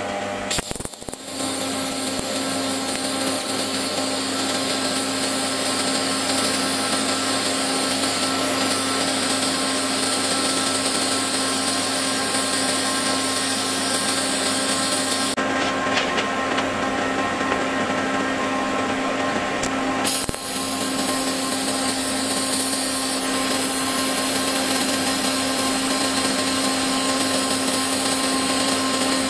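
TIG welding arc brazing a steel lathe chuck jaw with silicon bronze filler wire. The arc strikes about a second in and runs as a steady hiss over a hum. The hiss dulls for about five seconds past the middle, then comes back.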